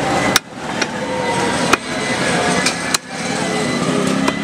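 Butcher's knife chopping goat meat on a wooden log block: three sharp strikes about a second and a half apart, with fainter taps between. Steady street noise runs underneath.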